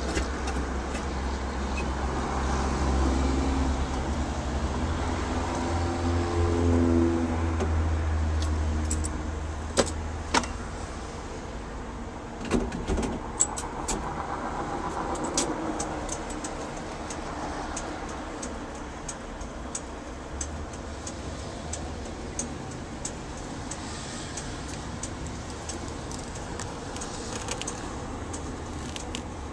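Refuelling at a gas pump: a steady low hum for about the first ten seconds, then a run of sharp clicks and knocks.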